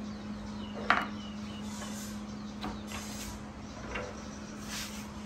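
A few sharp clicks and knocks of hands and fruit on a wooden table, the loudest about a second in, with light rustles, as a baby macaque handles longan fruit. A steady low hum runs underneath.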